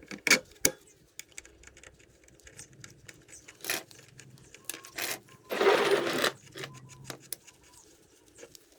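Clinks and knocks of metal tools and parts being handled during scooter wheel-bearing work, with a short clattering burst lasting under a second about two-thirds of the way through.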